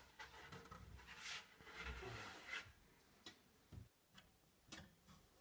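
Faint handling of a wooden window shutter: soft rustling and scraping for the first couple of seconds, then a few light clicks and knocks.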